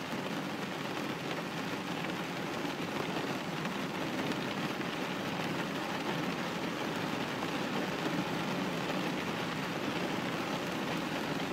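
Rain hitting a glass window pane, a steady even hiss with no single drops standing out.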